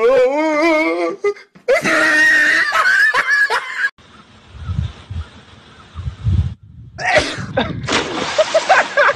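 Loud human voices: first a voice with a quick wavering pitch, then a few seconds of low rumbling noise, then voices again near the end.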